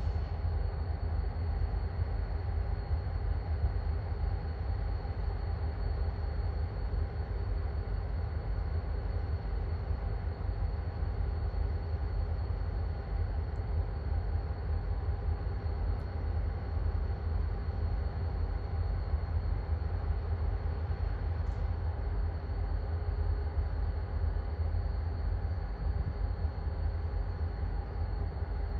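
Diesel freight locomotives, three EMD GP39-2s, running as they approach: a steady low rumble with a faint even hum above it.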